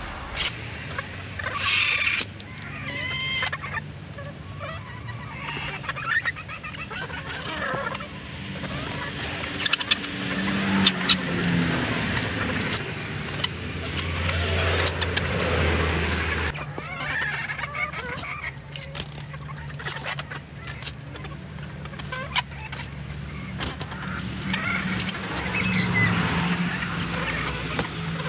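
Domestic hens clucking and calling at intervals while they scratch and peck through loose compost, with scattered short ticks and rustles. A low steady hum runs underneath.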